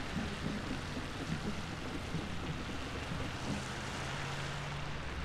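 Steady outdoor street ambience with an even wash of noise and a low hum from slow-moving parade vehicles.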